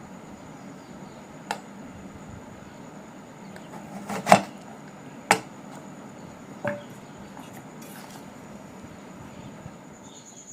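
Four sharp knocks and clacks of kitchen utensils or cookware, the loudest about four seconds in, over a steady low hiss with a faint thin high whine.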